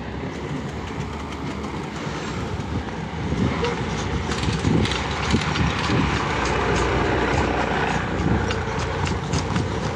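A person running in airsoft gear: quick footfalls and rattling equipment come in from about three seconds in, over a steady rushing noise.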